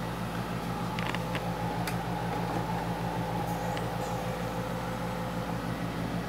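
Newly assembled desktop PC running just after power-on: a steady low hum and fan whir, with a few faint clicks.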